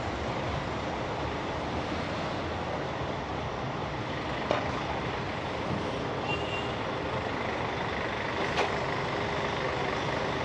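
Steady street noise of engines, with coach buses idling at the curb and traffic, and two sharp clicks partway through.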